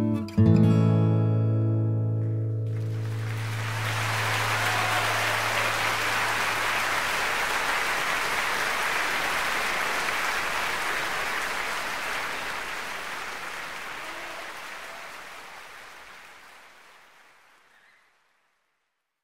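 An acoustic guitar ends the song with a final strummed chord that rings on for a few seconds. Then a steady hiss of noise swells up and slowly fades away, dying out to silence near the end.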